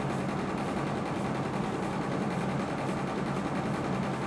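Electric desk fan running with a steady low hum over an even hiss.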